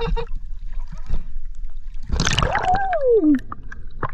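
Water sloshing and lapping against an action camera at the sea surface, with a low rumble throughout. About two seconds in comes the loudest sound, a rush of noise with a falling whine lasting about a second, and a few clicks follow near the end.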